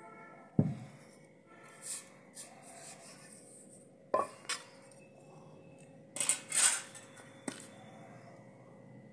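Earthenware pot and kitchen utensils being handled on a cloth. A heavy thud comes about half a second in, then scattered knocks and clinks, a short scraping rustle and a last click, as the clay pot is set out for pounding masala.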